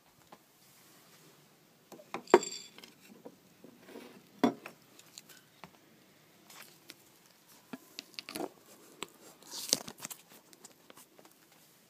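Handling noises of things being moved and set down: a sharp clink that rings briefly about two seconds in, a knock about four and a half seconds in, then a run of light clicks and rustles.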